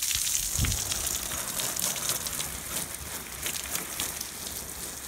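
Garden hose spray hissing steadily as water is sprayed over leafy plants and soil, a crackly patter of droplets on the leaves, with a brief low bump about half a second in.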